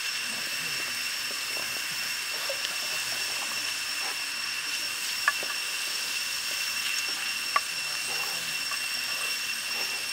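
Pig liver and morning glory frying in a hot metal pan over a wood fire: a steady sizzling hiss, with two sharp crackles about five and seven and a half seconds in. A faint steady high-pitched whine runs underneath.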